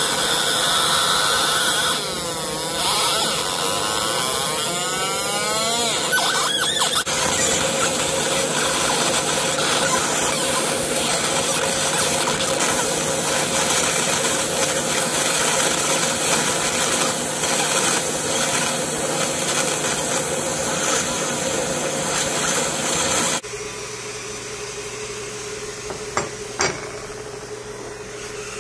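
50 W fiber laser engraving machine running as it engraves steel gun parts, a steady high-pitched whine with several held tones, and in the first stretch the pitch sweeps up and down as the beam scans. Near the end the level drops and there are two sharp clicks.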